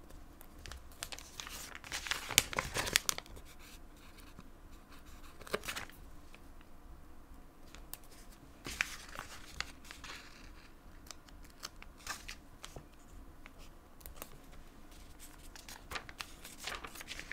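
Paper stickers being peeled from their backing sheet with tweezers and pressed onto notebook pages: irregular bouts of paper crinkling and rustling, loudest about two to three seconds in, with scattered light ticks and taps.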